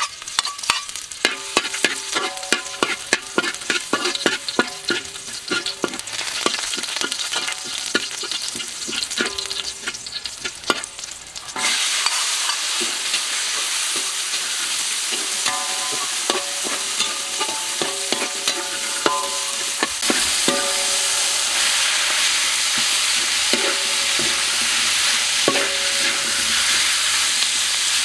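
Metal spatula stirring and scraping in a steel wok of frying garlic, with many sharp clicks as it strikes the wok and makes it ring. About a third of the way in, the sizzle jumps suddenly loud as peas, chillies and shallots hit the hot oil. It grows louder again about twenty seconds in as the stirring goes on.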